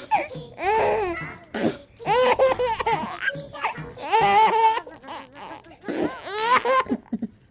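Baby laughing in high pitched squealing bursts, about four peals of laughter with short breaths between them.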